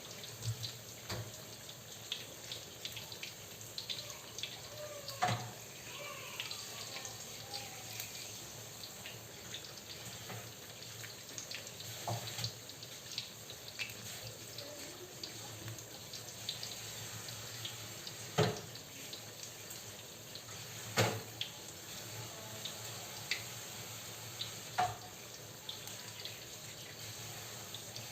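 Flour-battered tempeh deep-frying in hot oil: a steady sizzle full of small crackles and pops, with a few sharper clicks standing out.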